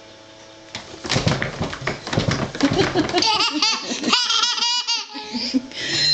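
A baby laughing, starting about a second in: breathy bursts that turn into a string of high-pitched giggles.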